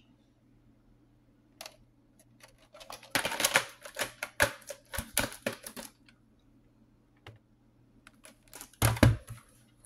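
Plastic VHS cassettes and cases being handled: a quick run of clicks and clatters for a few seconds, then a heavier plastic knock about nine seconds in as a tape case is moved.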